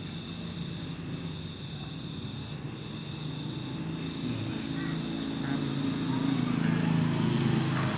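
Insects chirping in a steady, evenly pulsed high trill, over a low hum that grows louder through the second half.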